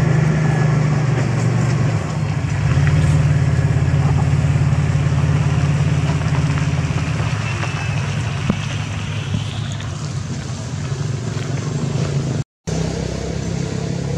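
Steady low engine hum, like a motor vehicle running close by, with a brief cut-out near the end.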